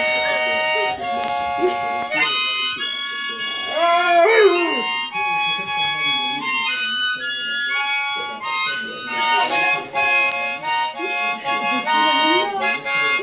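Harmonica played in held chords while a husky howls along with it, one rising-and-falling howl about four seconds in and another near the end.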